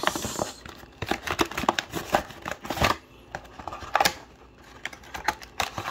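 A cardboard Yu-Gi-Oh! Maximum Gold box being handled and worked open: irregular taps, clicks and scrapes of the cardboard flaps and sleeve.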